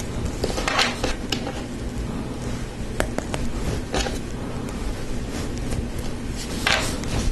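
Lego Technic plastic parts being handled and pressed together: scattered small clicks and short rustles of pieces over a steady low background hum.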